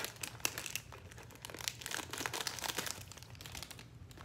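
Crinkly snack bag of cracker chips being handled and opened, with irregular crackling rustles.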